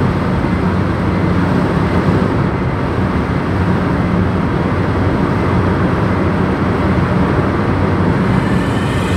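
A car driving at highway speed, heard from inside the cabin: a steady road and engine rumble with a low drone.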